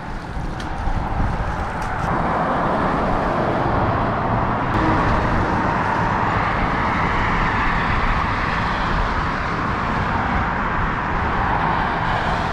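Steady road-traffic noise from cars driving across the bridge. It swells about two seconds in and then holds.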